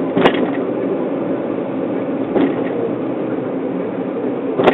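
Steady road and engine noise inside a moving car, broken by three short knocks about two seconds apart.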